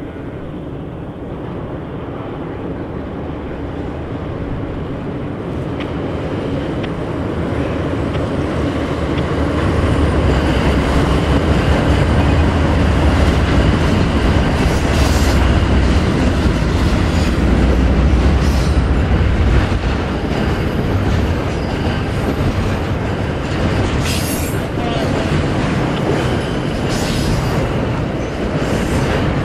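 CN diesel locomotives hauling a double-stack container train across a steel trestle bridge. A deep engine rumble builds as the locomotives draw near, is loudest as they pass about halfway through, then gives way to the steady rolling rumble of the container cars, with a few sharp wheel clacks.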